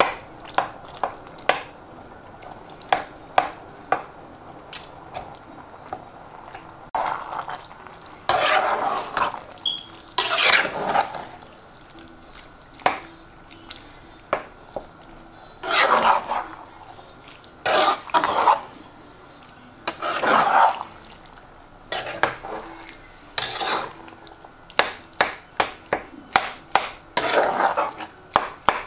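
Slotted metal spatula stirring beef mince and tomato sauce in a stone-coated pot: quick taps and clicks of metal against the pot, and now and then a longer wet scraping swish through the sauce.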